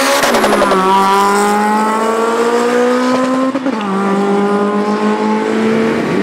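Drag-racing cars at full throttle going by and pulling away. The engine's pitch drops sharply just as they pass, then climbs steadily through the gear. It falls at an upshift about three and a half seconds in and climbs again.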